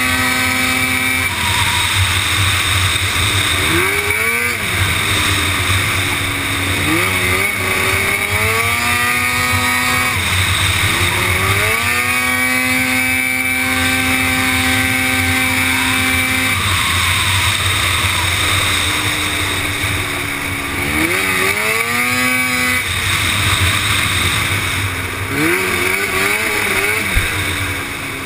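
Racing quad bike's engine heard from on board at race pace: the engine note climbs hard through the revs and drops back again and again as the rider accelerates and backs off for corners, held steady for a few seconds in the middle.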